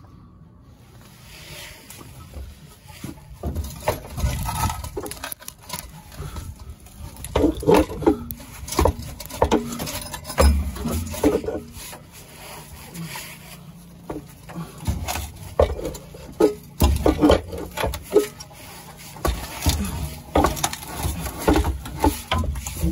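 Corroded rear exhaust silencer and tailpipe of a Vauxhall Corsa C being wrenched back and forth by hand. It gives irregular metallic knocks, clanks and scrapes as the rotten pipe bends at its joint with the box. The knocking grows busier after the first few seconds.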